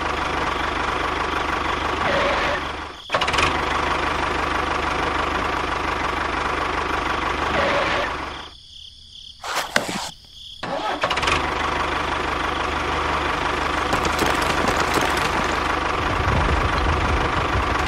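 Steady engine-like running of a miniature toy tractor, with a steady whine on top. It dips briefly about three seconds in, then cuts out for about two seconds in the middle, with a couple of sharp clicks in the gap, before running on again, with a heavier low rumble near the end.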